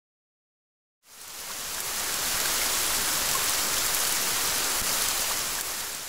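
A steady, even hiss of rushing noise, fading in about a second in and tailing off near the end.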